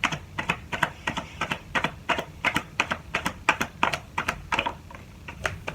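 Tarot deck being shuffled by hand: quick, even card slaps, about five a second, pausing briefly near the end.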